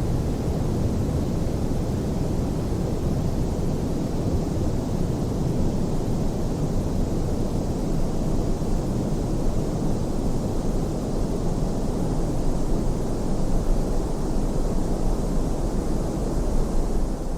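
Steady pink noise, a soft even hiss weighted toward the low end, with a slight slow swell in loudness over the stretch.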